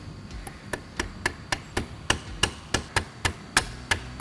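Hammer tapping a knurled pin into a steering column to press it home and hold the shift lever: a steady run of light taps, about three or four a second, starting about half a second in.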